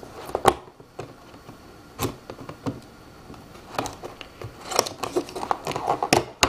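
Cardboard box being opened: a small hand tool breaks the tape seals on the side flap, with irregular scrapes, rustles and clicks of cardboard and tape that come thicker in the second half.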